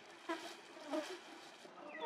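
Young macaque monkey giving three short, high squeaks: one about a third of a second in, another about a second in, and a falling one near the end.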